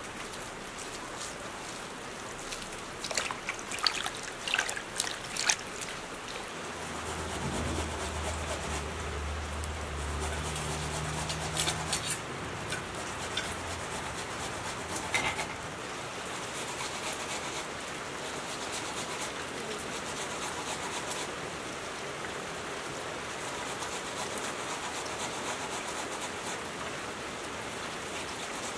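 Steady rain falling. A few sharp knocks come about three to five seconds in, and a low hum runs for several seconds in the middle.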